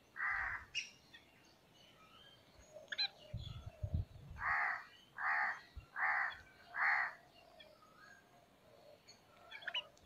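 Crow cawing: one harsh caw right at the start, then four caws in a steady row a few seconds later. A few low thumps come just before the row of caws.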